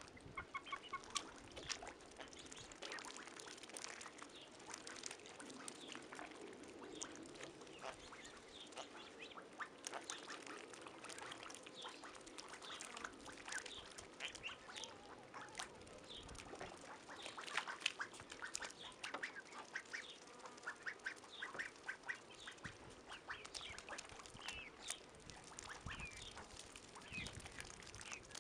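Ducks and young geese making short, soft quacks and calls while they dabble with their bills in a shallow muddy puddle, with scattered small wet clicks and splashes.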